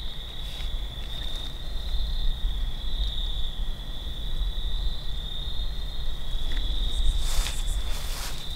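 Night-time chorus of insects, a steady high-pitched trill that holds unbroken, over a low background rumble. Two brief noises come near the end.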